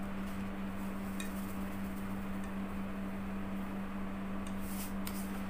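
Steady low hum throughout. Salt is poured from a plastic bottle into a bowl, heard as a brief soft hiss near the end, with a faint click about a second in.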